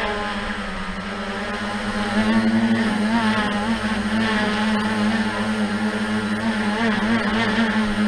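Tricopter's brushless motors and propellers running with a steady buzzing whine whose pitch wavers up and down. It gets louder about two seconds in.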